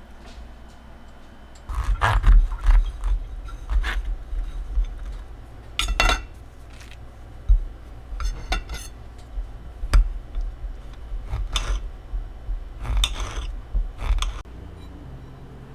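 Objects being handled: an irregular run of clinks, knocks and short scrapes, starting about two seconds in and stopping shortly before the end.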